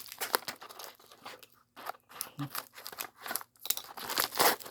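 Tightly wrapped packaging being crinkled and torn open by hand: irregular crackling and ripping with short pauses, loudest near the end.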